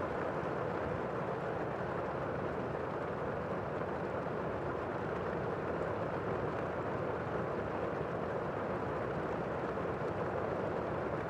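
Steady rain falling, a constant even hiss with no single drops or claps standing out, somewhat dull with little high treble.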